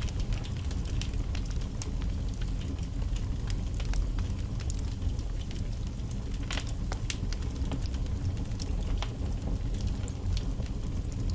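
Wood fire burning in a fireplace: a steady low rumble of flames with frequent irregular crackles and pops from the logs, one sharper snap a little past the middle.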